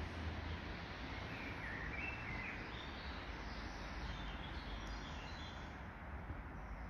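A few short bird chirps, clearest about two seconds in with fainter higher ones following, over a steady background hiss.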